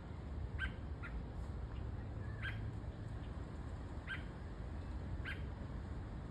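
A small bird chirping in short single peeps, about five of them spaced irregularly, over a steady low hum.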